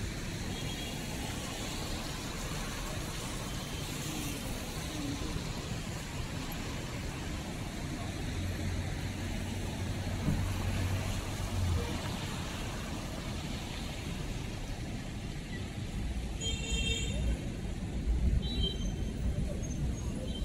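City street traffic: cars and other vehicles passing over a steady hiss, with one engine's low hum in the middle. A few short high beeps sound near the end.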